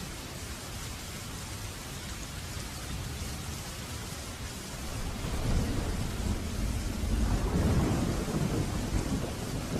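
Steady rain hissing, with a low rumble of thunder that swells about halfway through and stays loud for a few seconds.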